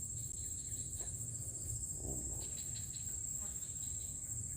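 Crickets chirring in a steady high-pitched drone, over a low background rumble.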